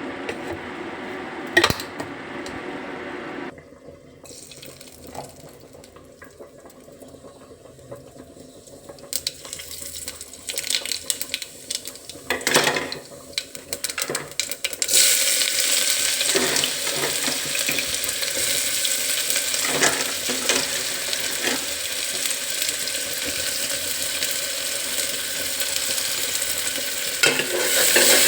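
Kitchen cooking sounds: utensils clinking and knocking against a pot, then a loud steady hiss from about halfway through to the end.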